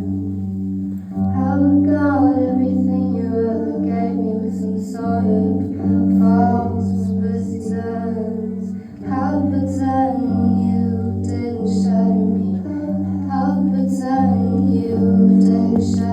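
Music: a voice singing a melody over a steady sustained low drone, with some plucked string accompaniment.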